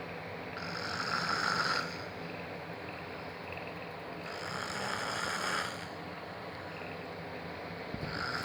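A man snoring in deep sleep: two long, rasping snoring breaths about four seconds apart, with a third beginning near the end, over a steady background hum.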